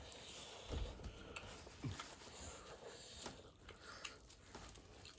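Faint chewing and biting of pork feet, with scattered soft clicks and a couple of low bumps.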